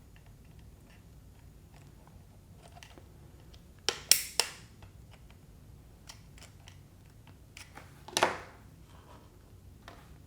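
Plastic clicks and taps of the toothbrush's housing being handled, with a quick run of three sharp clicks about four seconds in and another near the eight-second mark: the Oral-B Triumph's side clips being snapped in with a small screwdriver.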